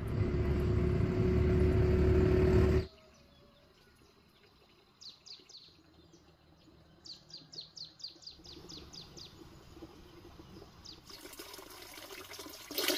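Loud market background noise with a steady hum that cuts off about three seconds in. Then, over quiet air, a bird gives two runs of quick, high chirps. Near the end, water pouring from a pipe into a plastic basin splashes.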